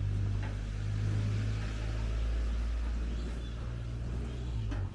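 A steady low rumble, with a straw broom sweeping across a concrete floor. The rumble cuts off suddenly at the end.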